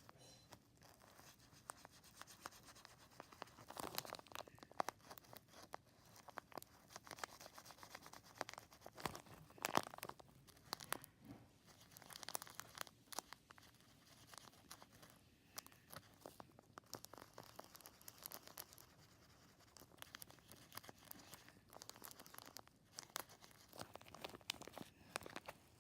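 A marker drawing on a stuffed plastic Ziploc bag: faint, irregular scratching strokes with the bag crinkling as it is handled.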